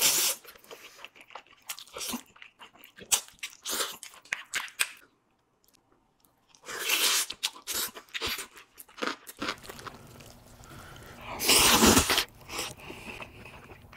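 Close-miked eating of spicy cheese-and-corn fire noodles: noodles slurped in a few longer bursts and chewed with many short sticky clicks, with a brief pause near the middle.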